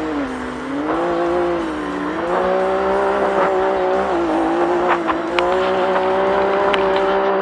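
Racing side-by-side UTV engine running hard, its note rising and falling for the first couple of seconds and then holding at high revs, with a few sharp knocks from the car over rough desert ground.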